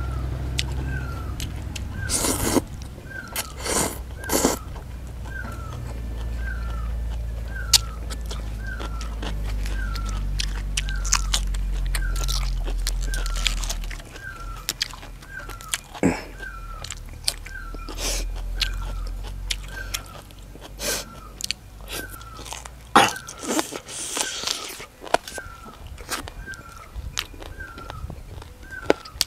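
Close-up chewing and crunching of papaya salad, rice noodles and raw vegetables, with short sharp crunches and wet mouth sounds. A faint chirp repeats about once a second throughout.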